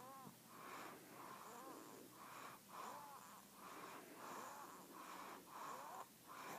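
Faint, rapid wheezing breaths, about two a second, each with a thin squeaky whistle that rises and falls in pitch.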